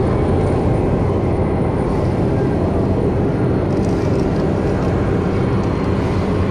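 Boat motor running steadily, a loud constant drone with a low hum.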